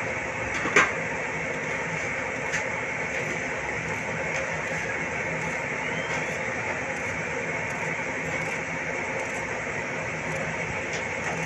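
Steady droning background noise, with a sharp click about a second in and a fainter click a couple of seconds later.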